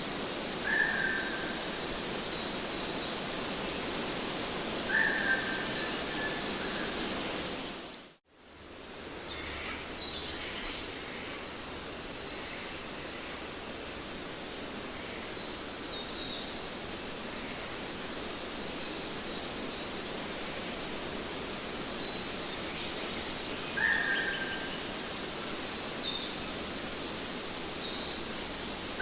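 Steady background hiss with birds chirping now and then: short falling chirps and a repeated short whistled note heard about four times. The sound cuts out for a moment about eight seconds in.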